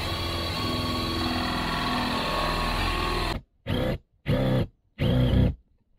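Cordless drill with a 7/8-inch spade bit running steadily, boring up through an RV ceiling toward the roof, then cutting off suddenly and running in three short bursts.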